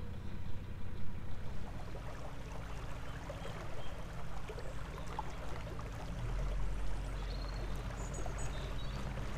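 Water washing along the hull of a moving narrowboat over the steady low hum of its engine, with a deeper low rumble coming in about two-thirds of the way through.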